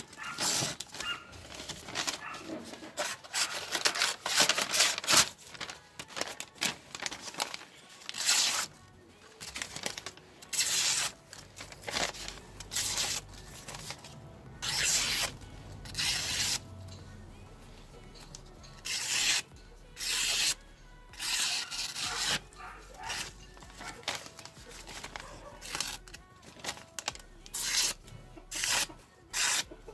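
Knife blade slicing through held-up sheets of notebook paper, a quick irregular run of short papery cuts and rustles, testing the sharpness of the restored knife's edge.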